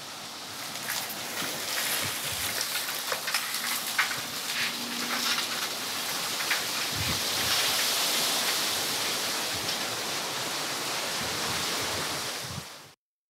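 Steady rushing hiss of outdoor ambience with scattered light clicks, a little louder in the second half, cutting off abruptly near the end.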